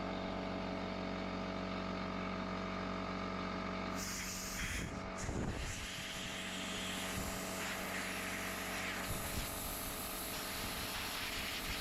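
Compressed air being blown into the dirty trigger and switch housing of a battery chainsaw. A steady mechanical hum is joined by a hiss of air from about four seconds in.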